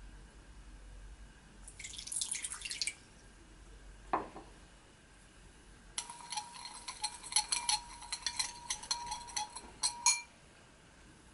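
A metal spoon stirring salt and sugar into cold water in a glass mixing bowl, clinking and scraping against the glass for about four seconds in the second half. Before that comes a short pour of water into the bowl about two seconds in, then a single soft knock.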